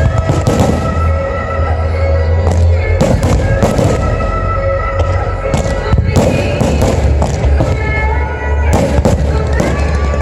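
Fireworks display bursting: many sharp bangs and crackles in quick clusters, with a deep rumble under them, over loud music playing along with the show.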